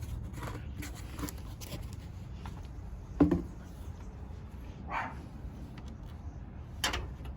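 A dog barks once, sharply, about three seconds in, with a few fainter short sounds later, over the steady low hum of the Toyota Highlander's engine idling.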